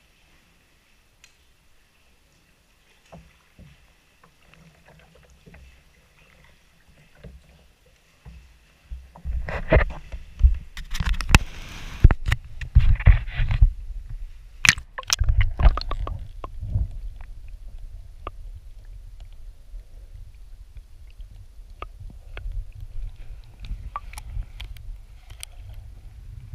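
Sea water splashing and sloshing against a GoPro's waterproof housing as it is dipped at the waterline beside a kayak hull, with loud irregular knocks, then a steady muffled low rumble once the camera is underwater. The first few seconds are nearly quiet, with a few faint drips or ticks.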